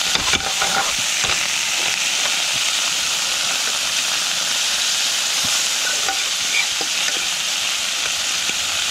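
Sliced olives, cherry tomato and basil sizzling steadily in hot oil in a frying pan, stirred with a metal fork that gives a few light clicks against the pan, mostly in the first second or so.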